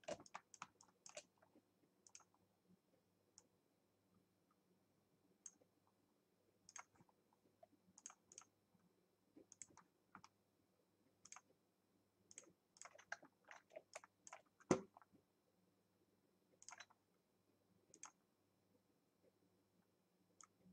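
Faint, irregular clicks from a computer's input devices, spaced a second or so apart and bunching up for a few seconds, with one louder knock about fifteen seconds in.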